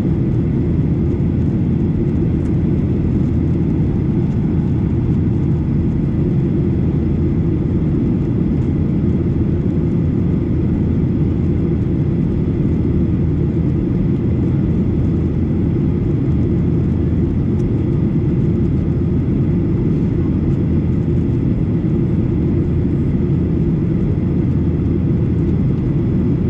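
Boeing 737 airliner in flight: a steady low rumble of jet engines and airflow that does not change over the whole stretch.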